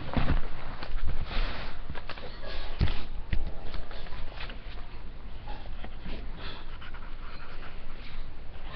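Handling noise as the webcam is moved and set down: a few sharp knocks in the first three and a half seconds, then softer rustling and shuffling.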